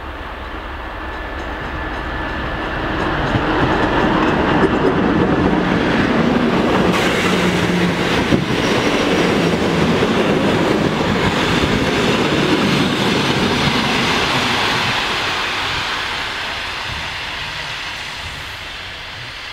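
TEP70BS diesel locomotive with its V16 diesel engine hauling a passenger train past at speed: it grows louder as it approaches, then the coaches roll by for about ten seconds, and the sound fades as the train moves away.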